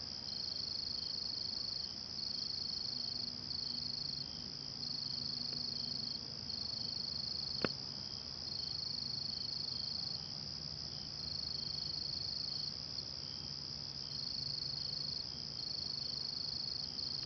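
Insects trilling at a high pitch: one steady trill, with a second trill that starts and stops every second or so. A single sharp click about halfway through.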